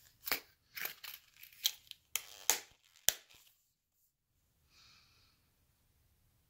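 Stiff leather knife sheath handled and its belt flap folded over: a run of short leather rustles and creaks, ending in sharp clicks about two and a half and three seconds in as the snap fasteners are pressed shut.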